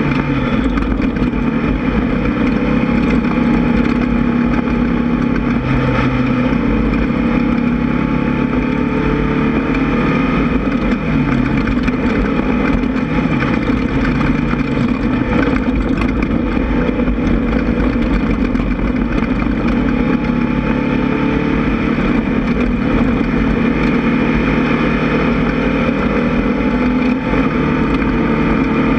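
Air-cooled 1600 cc VW engine of a Class 1600 off-road race buggy running hard under load, its revs rising and falling as it drives, with scattered knocks.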